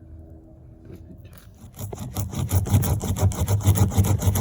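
Spiral reamer from a tire plug kit rasping in and out of the puncture in a car tire's rubber, with fast repeated strokes starting about a second and a half in. This roughs up and cleans the hole so a plug can be inserted.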